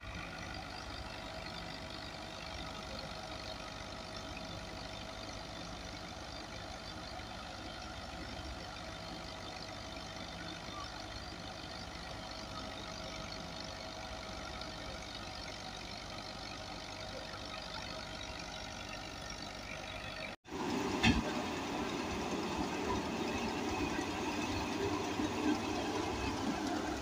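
Diesel tractor engine running steadily. About two-thirds of the way through, it gives way to a louder tractor-driven grain thresher running at work.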